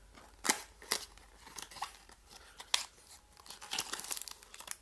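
Blind-box packaging being handled and torn open: crinkling and tearing, with a few short sharp crackles and a busier stretch of rustling near the end.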